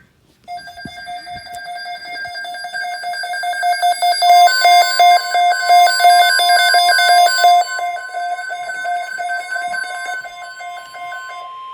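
Electronic emergency-alert tones: a rapidly pulsing, beeping alarm sequence with stepping high notes starts about half a second in. About four seconds in, a steady single alert tone joins it and holds on after the pulsing stops near the end.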